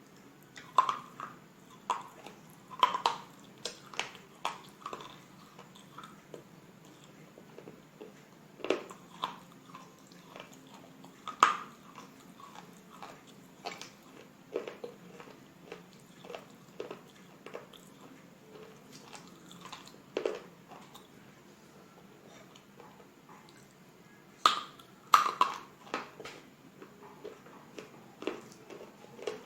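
Close-miked biting and chewing of slate bars (slate pencils eaten as a snack): irregular sharp crunches and crackles with quieter chewing between them. The loudest bites come about a second in, near three seconds, near twelve seconds and in a pair near twenty-five seconds.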